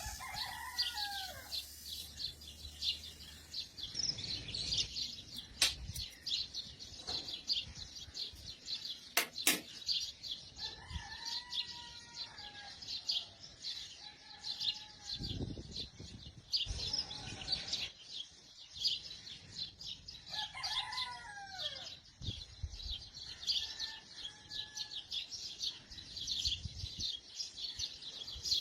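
Small birds chirping continuously, with a rooster crowing three times: near the start, about a third of the way in, and about three-quarters of the way in. A few sharp clicks are also heard.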